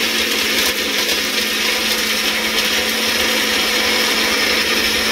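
Electric mixer grinder running steadily at full speed, its small jar grinding dry-roasted whole spices and almonds into a powder.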